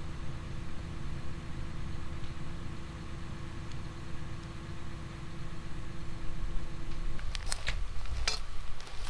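An engine idling with a steady low hum that stops about seven seconds in, followed by a few sharp clicks and knocks near the end.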